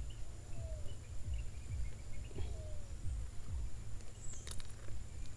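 Gloved hands unhooking a small triggerfish, with low rumbling handling noise on the microphone, a few faint short falling calls and a sharp click about four and a half seconds in.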